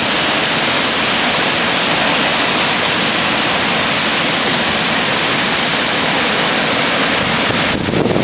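Unchalli Falls' water pouring down: a loud, steady rushing roar of falling water.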